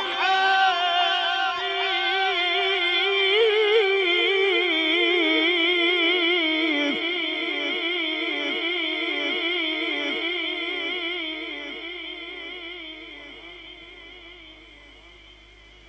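A male qari's voice reciting the Quran in melodic tilawat style into a microphone, drawing one phrase out into a long held note. The pitch of the note wavers up and down in a slow, even shake, and the note fades away over the last few seconds.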